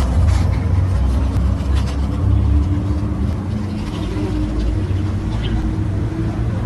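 Bus engine idling with a steady low rumble.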